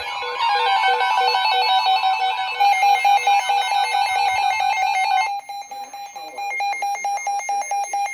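Electronic Emergency Alert System alert tones: a steady high tone with rapidly stepping electronic beeps layered over it. About five seconds in, the layers drop away, leaving one steady tone with quick pulsing.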